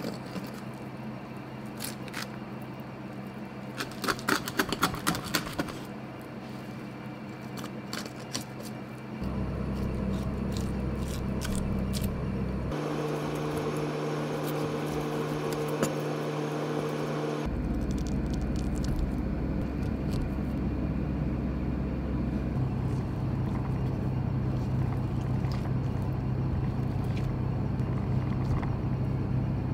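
Knife scraping and cutting along the bones of a splendid alfonsino on a cutting board, with light scrapes and clicks, busiest about four to five seconds in. From about nine seconds in, soft background music of held chords comes in and plays on, changing chord every few seconds.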